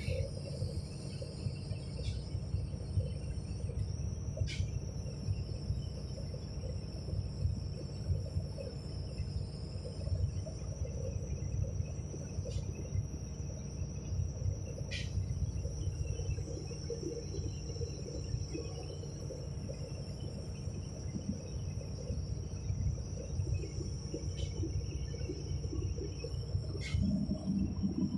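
Hydraulic excavator's diesel engine idling steadily, heard from the operator's seat, with a thin, steady high-pitched whine above it and a few faint clicks.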